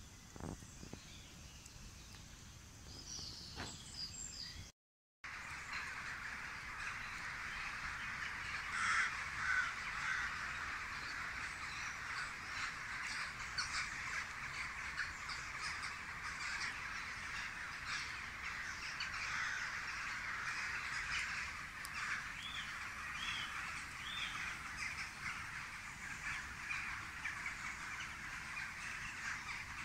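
A large flock of crows cawing together, many calls overlapping into a continuous chorus. It comes in after a short drop-out about five seconds in; before that there are only faint clicks and a few high chirps.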